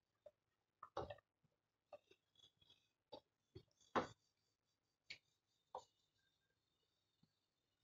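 Faint, scattered scrapes and taps of a silicone spatula stirring diced onions in a nonstick frying pan, about ten short strokes with the loudest about four seconds in.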